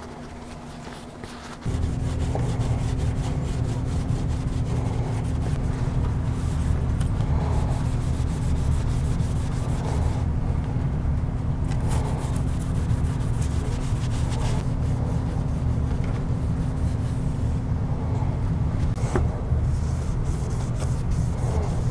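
A steady low hum switches on suddenly about two seconds in and stays the loudest sound. Under it, a cloth shop towel rubs over the model plane's tail, wiping off excess glue.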